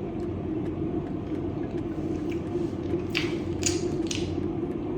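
Soft, wet squelching of a creamy tomato pasta being handled, a few short strokes in the second half, over a steady low hum.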